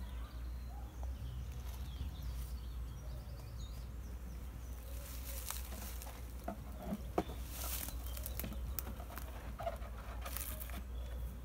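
Wooden beehive boxes knocking and scraping as they are lifted and stacked back onto the hive, mostly in the second half. Honeybees buzz around the open hive throughout.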